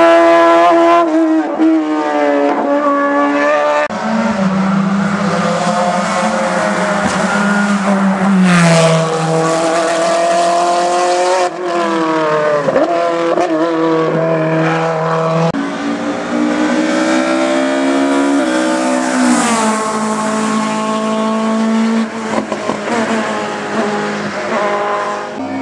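Competition car engines at hard throttle, their pitch climbing and dropping with quick gear changes, with tyres squealing. The engine note changes abruptly a few times, as one car gives way to another.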